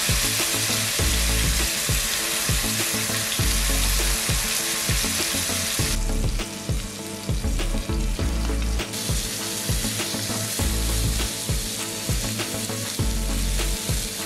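Rib-eye steak sizzling in butter in a nonstick frying pan. The sizzle softens for a few seconds around the middle and then picks up again.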